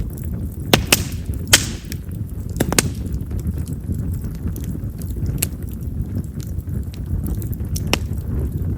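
Chestnut-wood campfire burning: a steady low rumble of flames with sharp crackling pops, the loudest two close together about a second in, each trailing a short hiss, and fainter ones scattered after. Chestnut's large pores make it a firewood known for popping.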